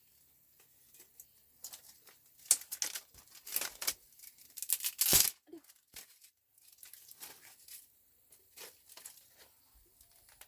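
Crinkling and tearing noises in a run of short, irregular bursts, loudest between about two and a half and five and a half seconds in, then sparser.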